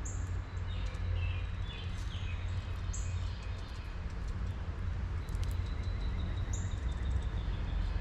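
Wild songbirds chirping now and then, with a few short high chirps a few seconds apart, over a steady low rumble.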